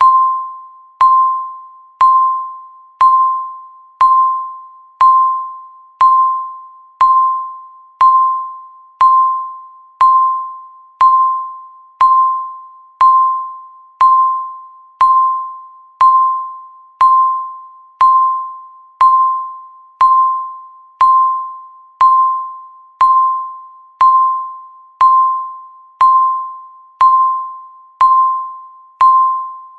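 Countdown timer beeping once a second: a single mid-pitched electronic beep with a sharp start that rings away over most of a second, ticking off each second left.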